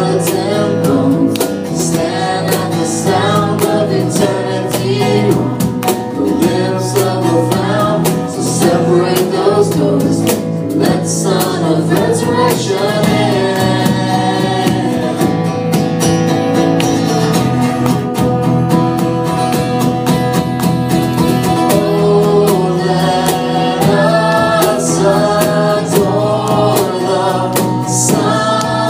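A group of voices singing a worship song together, accompanied by strummed acoustic guitar.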